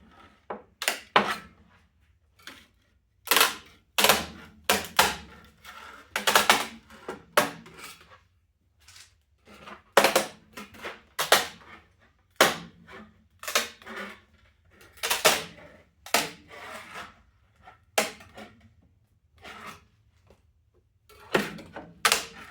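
Irregular sharp snaps and clicks of a blade being worked under a large 3D print on the printer bed, the plastic cracking and popping as it is prised loose from the bed surface.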